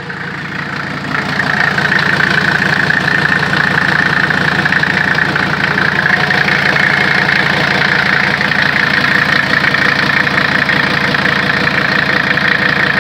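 Mercedes-Benz OM617 five-cylinder turbodiesel in a W123 300D idling with diesel clatter; it gets a little louder about a second and a half in, then runs steadily.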